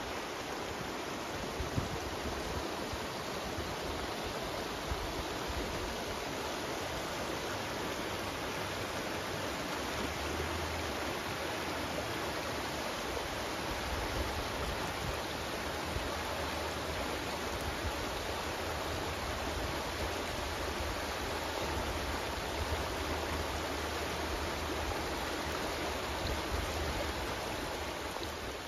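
Shallow mountain creek running steadily over stones, a continuous rushing hiss, with low wind rumble on the microphone now and then.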